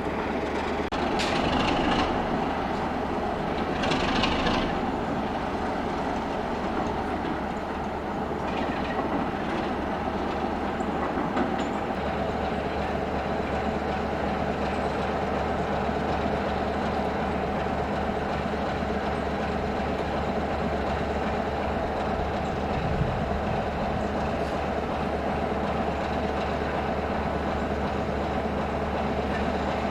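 Class 33 diesel-electric locomotive's Sulzer eight-cylinder engine running steadily, with a few short hisses in the first ten seconds or so.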